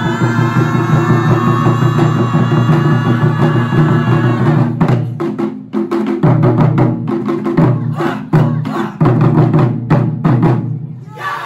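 Taiko drum ensemble: large barrel-shaped nagado-daiko and small rope-tensioned shime-daiko struck with wooden sticks. A dense, continuous run of beats breaks about five seconds in into separated unison strikes with short pauses between them, ending on a final hit near the end.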